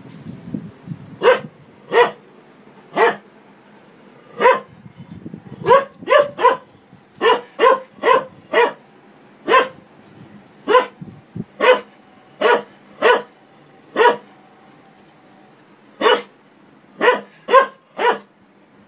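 A shepherd-type dog barking at a front-loading washing machine as its drum turns: about twenty short, sharp barks, some single and some in quick runs of two or three, with pauses of a second or two between them.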